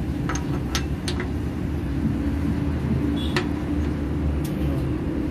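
A steady low rumble with about five light clicks of metal parts, three of them in the first second or so, as an oil pump and its drive gear are handled and fitted into an Isuzu 6BG1 diesel engine block.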